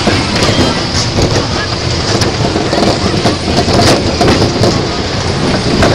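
Tilt-a-Whirl amusement ride running, heard from inside one of its spinning cars: a steady, loud wash of machinery and rushing-air noise.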